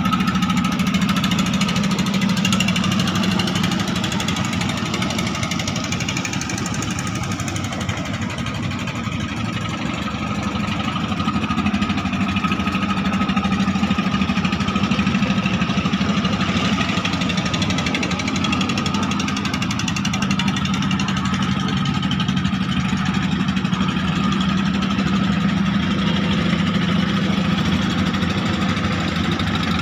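Klotok river boat's engine running steadily at constant speed, a loud, even mechanical drone with a slight knocking beat.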